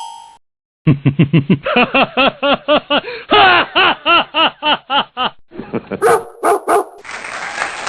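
A dog barking rapidly in short, rising-and-falling barks, about four or five a second, for several seconds. A few sharper sounds follow, and near the end a steady noisy wash begins.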